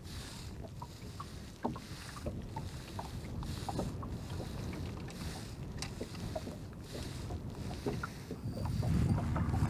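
Small wind-driven waves lapping and slapping against the hull of a small open boat, swelling every second or two, with scattered small splashes and clicks. Wind rumbles on the microphone and grows louder near the end.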